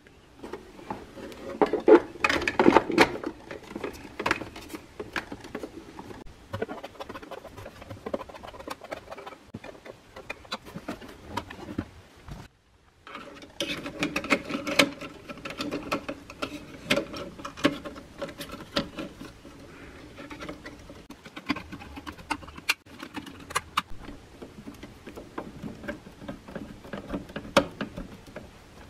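Hard plastic casing parts of a Keurig B40 coffee maker being handled and fitted together: scattered clicks, knocks and scraping, loudest a couple of seconds in.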